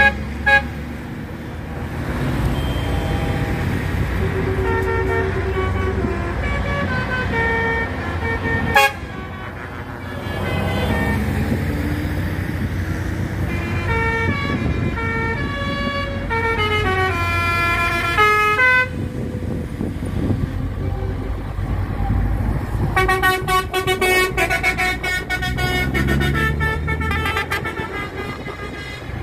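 Heavy trucks in a slow convoy with their diesel engines running, and multi-note air horns sounding short tunes of stepped notes several times. A sharp crack about nine seconds in.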